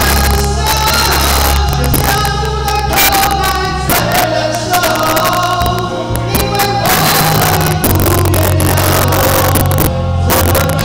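A Christian worship song performed live: music with a drumbeat, deep bass and singing, starting suddenly.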